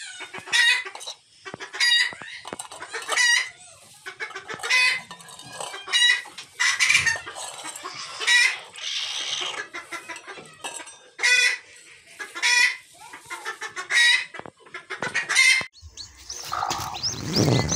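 Hen clucking: loud short calls repeated every second or so, with softer clucks between. Near the end the calls give way to a rustling noise.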